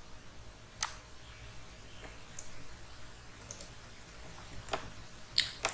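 Computer mouse clicks, a few isolated ones with several close together near the end, over a faint low hum.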